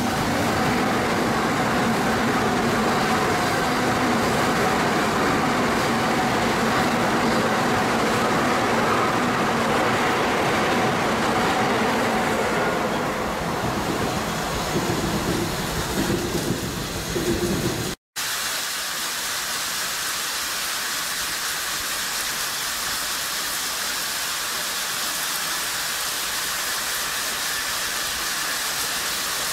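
Tokaido Shinkansen train passing slowly in heavy snow: a steady rumble of wheels on rail with a low hum running under it, cut off abruptly about eighteen seconds in. After the cut, a steady hiss of the snow-melting sprinklers spraying water onto the tracks.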